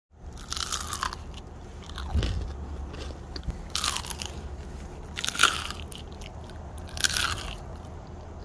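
Crunching as a crispy fried snack is bitten, about five crunchy bites roughly a second and a half apart.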